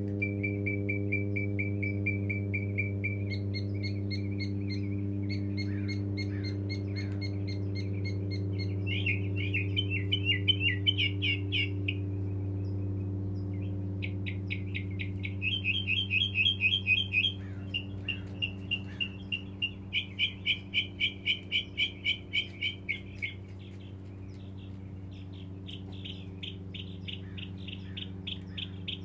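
Mockingbird singing: a male's long song bout of high-pitched phrases, each repeated several times before switching to the next, from a buzzy trill to warbles to runs of sharp notes at about three a second. He is a lone male singing for a mate.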